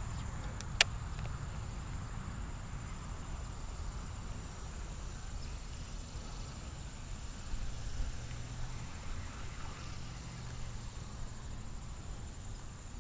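Quiet outdoor ambience: a steady low rumble with a faint high insect hiss, and a single sharp click about a second in.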